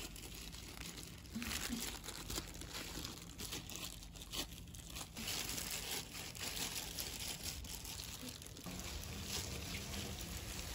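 Disposable plastic gloves crinkling and rustling as hands shape chocolate cookie dough.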